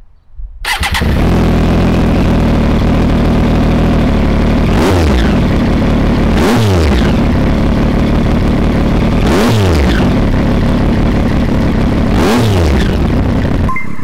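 Triumph Daytona 675R's three-cylinder engine breathing through an Austin Racing GP3 pipe and carbon GP2R end can: it starts a little under a second in, idles, and is blipped four times, each rev rising sharply and falling back to idle. Heard a few inches from the exhaust outlet.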